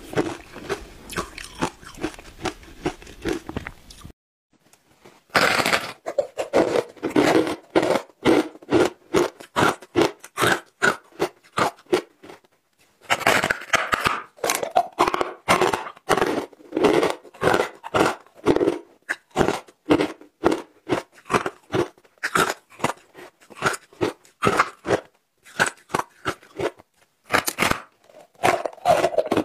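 Close-miked biting and chewing of matcha-powder-coated ice, with sharp crunches several times a second. The crunches come in runs broken by short pauses.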